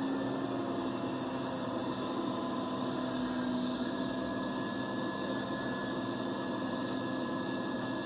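A heavy machine's engine running steadily, a constant hum with a steady droning tone, as the scrapped car is taken away.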